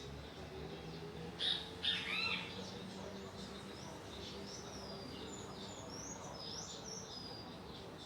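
Small birds calling: two loud, arching chirps about a second and a half and two seconds in, followed by a run of thin, high, gliding whistled notes.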